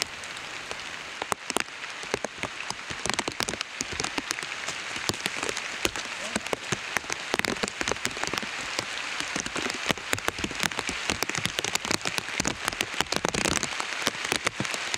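Steady rain falling, with many sharp, irregular raindrop taps.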